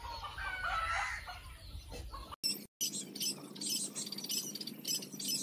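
Chickens clucking. A little over two seconds in, the background changes suddenly and quick high-pitched chirps follow.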